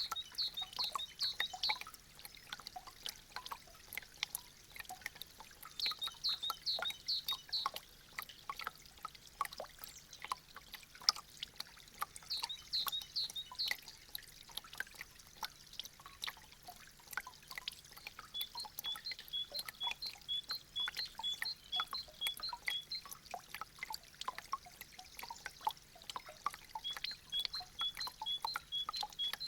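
Meltwater from icicles dripping and trickling, a dense run of quick drops. A high chirping repeats in short groups, several times.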